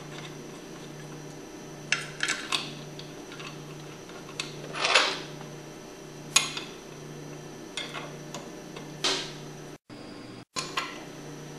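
Metal clinks, taps and a scrape as steel bolts, washers and a wrench are handled and threaded into a centrifugal pump's housing. The clicks are scattered, with a longer scraping sound about halfway through.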